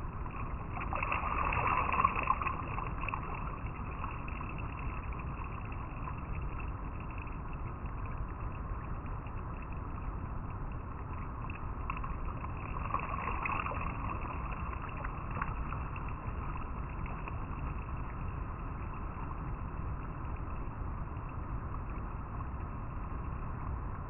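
River water flowing and rippling over rocks in a steady rush, swelling louder about two seconds in and again about halfway through.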